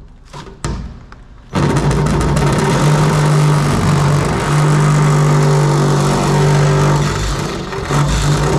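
A power tool's motor starts suddenly about a second and a half in and runs steadily under load, with a brief dip near the end.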